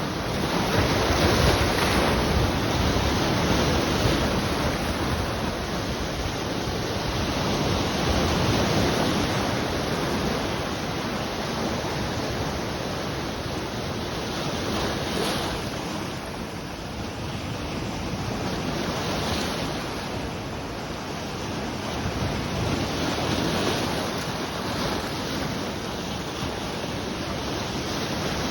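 Sea waves breaking and washing on the shore, the surf swelling and easing every few seconds.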